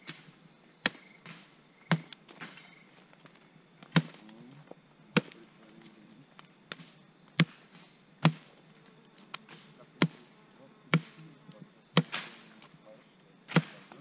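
Knife chopping through a colobus monkey carcass's rib cage: about ten sharp chops at uneven intervals of one to two seconds.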